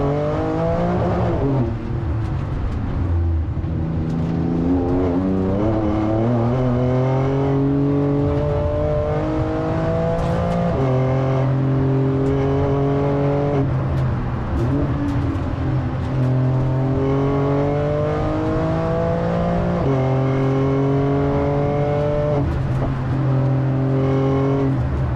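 Porsche 911 Turbo S twin-turbo flat-six heard from inside the cabin, pulling hard up a hill climb. Its note climbs steadily and falls back sharply several times as the car accelerates and changes speed.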